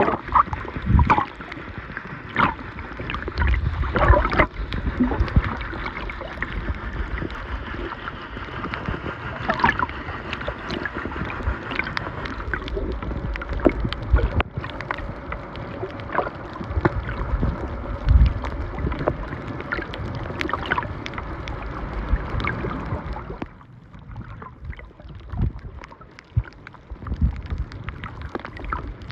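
Muffled water movement with irregular knocks and low thuds, as heard through an underwater camera housing. A steady hum runs underneath and cuts off about 23 seconds in, after which the sound is quieter.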